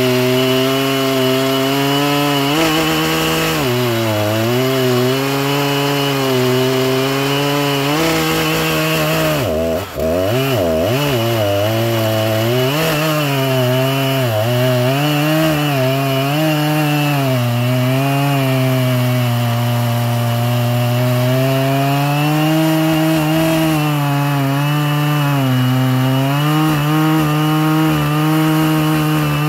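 Stock Husqvarna 3120XP chainsaw's big two-stroke engine running at full throttle in a long, deep cut through a large log, its pitch sagging and recovering as the chain loads up in the wood. About ten seconds in the revs dip sharply for a moment, then climb back.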